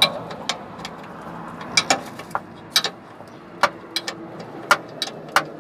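About a dozen sharp, irregular metallic clicks and knocks as the Mahindra TUV300's propeller-shaft centre support bearing is rocked by hand, over a faint steady hum. The clunking comes from the worn-out bearing's play.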